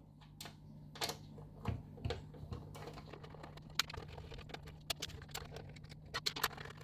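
Small, scattered clicks and ticks of a screwdriver working screws out of a DVR recorder's metal case, coming more often near the end, over a faint steady low hum.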